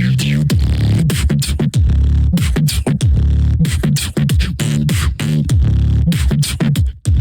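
Bass house electronic music: a heavy bass line made of repeated sliding, falling bass notes over a driving drum beat, with a brief break near the end.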